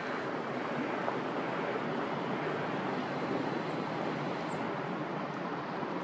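Steady rushing outdoor background noise with no distinct bird calls standing out.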